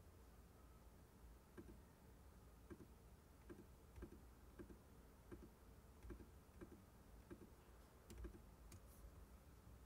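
Faint, light clicks, often in quick pairs, coming about one to two a second over a low steady hum.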